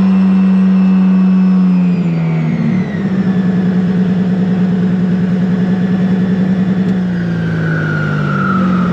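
Motor glider's pylon-mounted engine and propeller running steadily, then power comes off about two seconds in. The pitch drops, the engine runs on with a slow pulsing beat, and near the end it winds further down in a falling tone. The engine is being shut down so the propeller can be stopped vertical and retracted.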